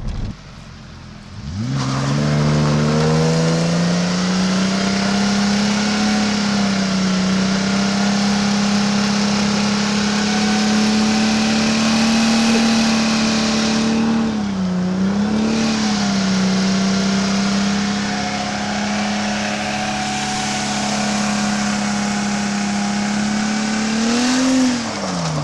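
Holden Commodore engine revved hard and held high for a burnout, with the rear tyres spinning and hissing under it. The revs dip briefly about halfway through, climb back, and fall away right at the end.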